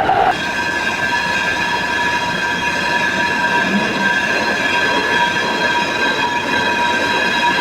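Milling cutter squealing steadily as it cuts teeth into a metal gear blank. The squeal takes hold just after a short knock at the start and holds at an even, high pitch.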